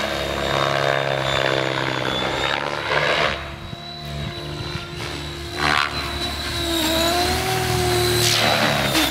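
Electric 600-size RC helicopter (Mikado Logo 600 with Edge 623 mm rotor blades and a Scorpion motor) in aerobatic flight. A steady high motor whine runs under the rotor noise. Loud blade whooshes come four times, about every three seconds, as it swings through manoeuvres, and the pitch dips and recovers near the end.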